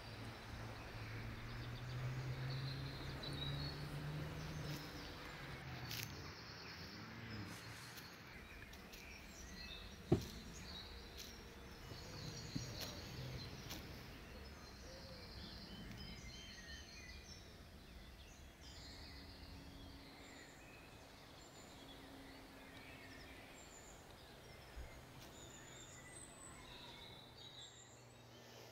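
Outdoor ambience of small birds chirping, over a low steady hum that fades after the first few seconds. A single sharp click about ten seconds in.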